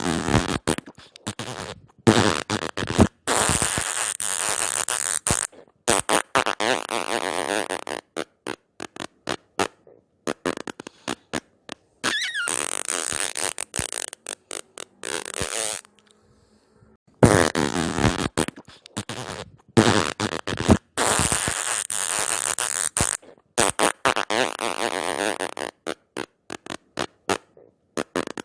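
Fart sound effects: a long string of farts, some short and clipped, some drawn out, with a pause of about a second just past halfway.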